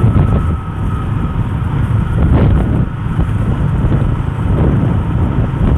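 Wind buffeting the microphone over the running engine and road noise of a Yamaha Sniper 150 motorcycle being ridden, a steady dense low rumble.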